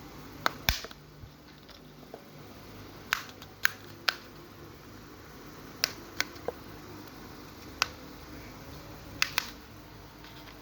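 Sharp, irregular clicks and taps, about a dozen, some in quick pairs, from small plastic parts and hand tools while a Realme C11 smartphone is being taken apart.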